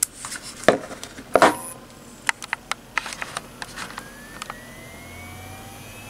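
Knocks and clicks as a hard drive and its USB adapter are handled and set down, the loudest about one and a half seconds in. From about four seconds in, a Western Digital 250 GB 3.5-inch IDE hard drive spins up on power, a faint whine rising steadily in pitch, which shows the drive is working.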